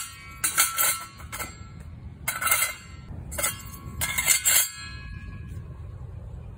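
Stainless steel flame ring clinking and scraping against the rim of a stainless steel smokeless fire pit as it is fitted on. About half a dozen light metallic knocks in the first five seconds, several ringing briefly like a small bell.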